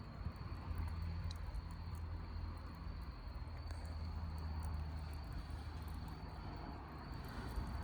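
Crickets trilling steadily at one high pitch, with scattered faint crackles from a campfire and a low rumble underneath.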